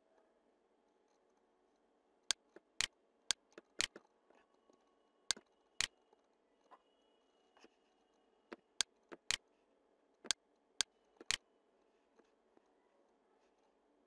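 Computer mouse buttons clicking: about fourteen sharp clicks in irregular groups, some in quick pairs, over a faint steady background hum.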